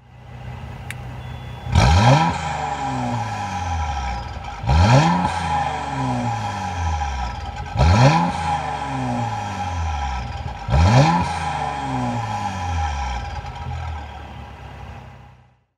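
Mercedes-AMG C43's M276 twin-turbo V6 free-revved four times, about every three seconds, through a Stone Eddy catalytic downpipe and Valvetronic cat-back exhaust. Each rev climbs sharply and then falls back slowly to idle.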